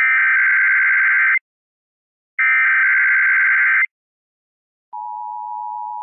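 Emergency Alert System Required Monthly Test broadcast on AM radio. Two bursts of the SAME digital header, each a harsh buzzing warble about a second and a half long with a second's gap between them, followed about five seconds in by the steady two-tone EAS attention signal.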